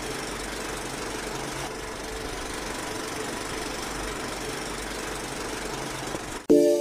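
Steady mechanical running noise, a continuous rumble with a faint hum, like machinery running. It cuts off sharply near the end as loud music begins.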